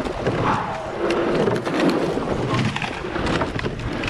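Rowing eight under way at race pace: a steady rush of wind and water around the boat, with scattered clicks and knocks from the oars and their gates.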